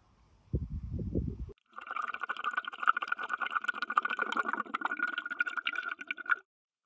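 Underwater camera audio: a dense watery bubbling and crackle over a steady high hum, starting about two seconds in and cutting off shortly before the end. Before it come brief low rumbling bursts.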